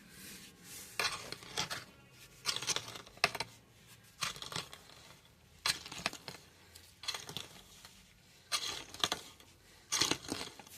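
Digging in garden soil to unearth potatoes: repeated short scraping strokes into the dirt, about one a second.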